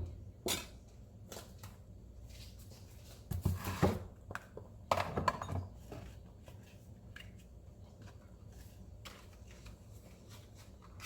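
Kitchen handling noises: scattered knocks and clicks, with two short bursts of rustling or clattering about three and a half and five seconds in.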